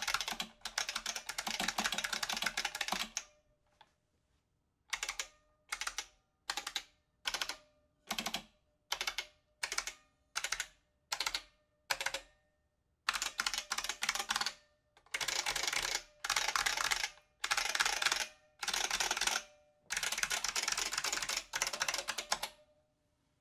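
Typing on a stock IBM Model F XT keyboard's buckling-spring switches: a run of fast clicky keystrokes, a short pause, then about a dozen short separate bursts in a steady rhythm, then longer bursts of rapid typing.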